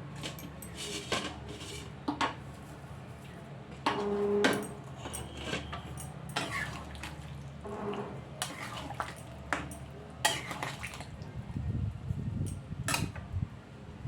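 Metal kitchen utensils clinking and scraping against pots and dishes in a dozen or so irregular knocks, one ringing briefly about four seconds in.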